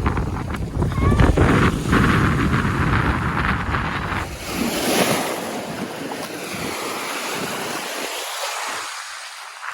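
Wind buffeting the microphone over the hiss of surf breaking on the beach. The low wind rumble gusts, then dies away about eight seconds in, leaving the surf.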